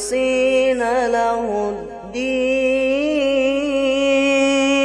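Melodic Quran recitation (tilawah) by a single voice, the words drawn out in long held notes with a wavering ornament. There is a short break about two seconds in, then one long held note.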